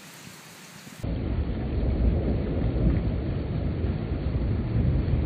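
Steady rain hiss, then from about a second in a loud, sustained low rumble of thunder from a nighttime thunderstorm.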